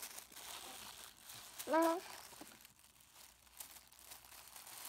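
Tissue paper rustling and crinkling as a toddler's hands pull at it. A little under two seconds in comes one short rising vocal sound from the child.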